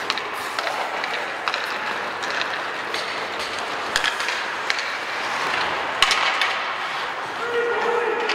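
Ice hockey play: skate blades scraping on the ice, with sharp clacks of sticks and puck now and then, the sharpest about six seconds in. A held tone joins near the end.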